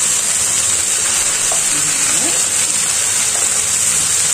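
Meat pieces and sliced green pepper frying in a hot pan: a steady sizzle.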